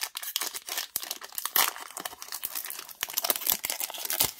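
A foil Pokémon booster pack wrapper crinkling and tearing as it is pulled open by hand, with many quick, irregular snaps.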